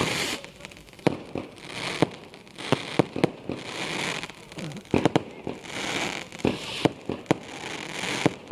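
Fireworks going off: many sharp pops and crackles, with a hissing burst about every two seconds.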